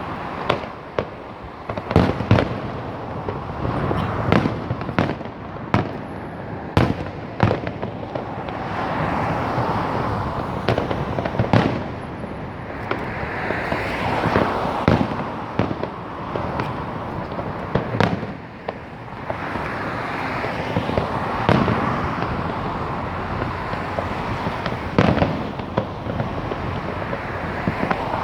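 Fireworks going off: a long, irregular series of sharp bangs, some close together, over a continuous noisy background between the bursts.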